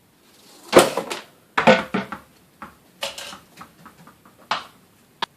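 A series of sharp knocks and clattering rattles, in about five separate bursts, the loudest about a second in: hard objects being handled and knocked together.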